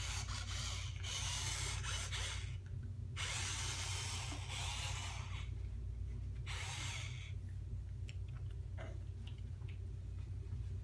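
Toy remote-control truck's small electric motor and gears whirring in three bursts, the last one short, stopping about seven seconds in; a few faint clicks follow.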